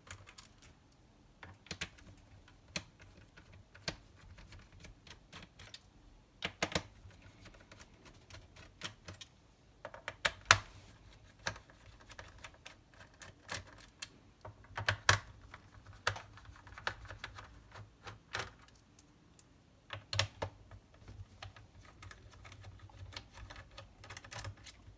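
Irregular small clicks and taps of a screwdriver turning out screws from a laptop's plastic bottom case, with a few louder knocks spread through as the case is handled.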